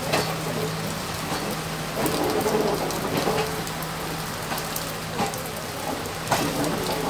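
Steady rushing hiss of rain and water around a moving train running through floodwater, with a low steady hum underneath and a few sharp knocks, the loudest about two-thirds of the way in.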